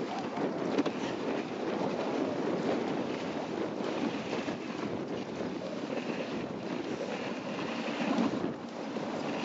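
Dog sled moving over snow: a steady scraping hiss of the runners on the snow, mixed with wind buffeting the microphone.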